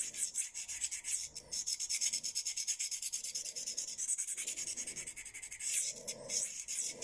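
Steel knife edge scraped across a hand-held DMT diamond sharpening plate in quick light strokes, several a second, a dry rasping. The edge is being worked to raise a burr along its whole length.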